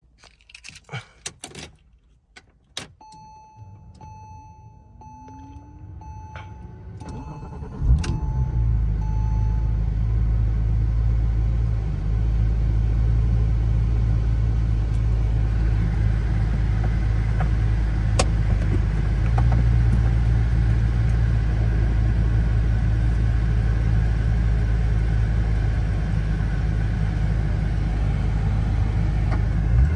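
A few clicks and a warning chime beeping repeatedly, then the 2004 Porsche 911 Turbo's twin-turbo flat-six cranks and starts about eight seconds in and settles into a steady idle.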